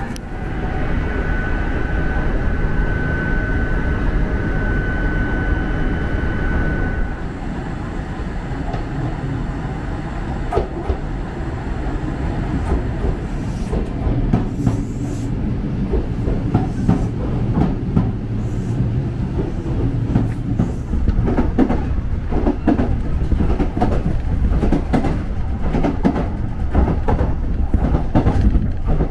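Kintetsu electric train. A steady high tone sounds over the train noise for about the first seven seconds. After that the train runs on with a low rumble, and its wheels click-clack over the rail joints more and more often through the second half.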